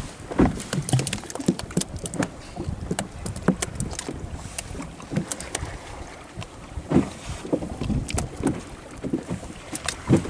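A small open boat at sea: irregular knocks and slaps come at uneven spacing over a steady wash of wind and water.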